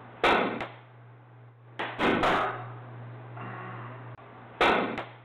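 Pool balls clacking on a billiards table as shots are played: three groups of sharp knocks, the cue striking the ball and the balls hitting one another. Heard through a security camera's built-in microphone, with a steady low hum underneath.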